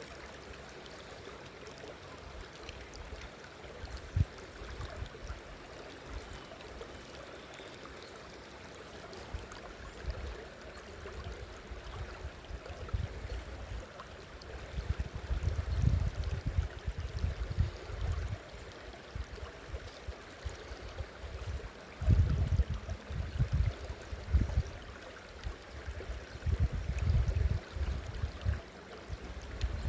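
Waterfall and stream water running steadily. From about halfway through, irregular low thumps and rumbles come and go over it, louder than the water.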